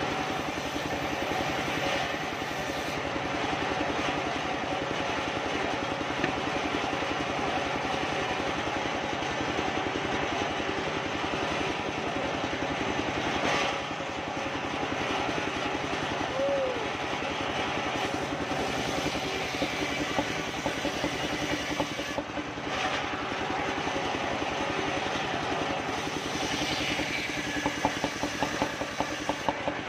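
Engine-driven large circular saw (gergaji serkel) running steadily while ripping a soft kapok (randu) board lengthwise. A run of quick knocks comes near the end.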